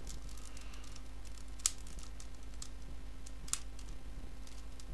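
3x3x3 Rubik's Cube being turned by hand during a speedsolve: irregular plastic clicks and clacks as the layers rotate, with two sharper clacks, over a steady low electrical hum.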